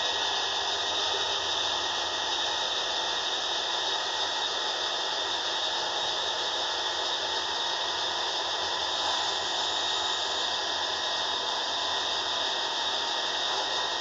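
Steady hiss of background noise, even in level throughout, with no distinct events.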